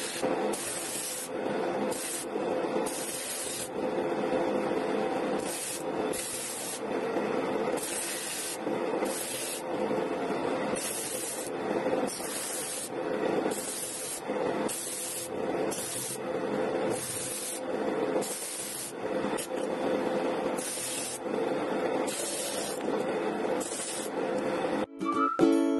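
Electric disc sander running with a steady hum while a small piece of pallet wood is pressed against the abrasive disc. The wood is sanded in short, hissing passes, roughly one a second.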